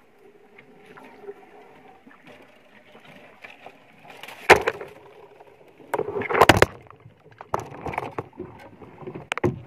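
A wooden boat glides quietly at first. About halfway through, a loud knock starts a run of knocks, scrapes and rustling that goes on to the end, as overhanging branches and leaves brush and strike against the boat and the camera.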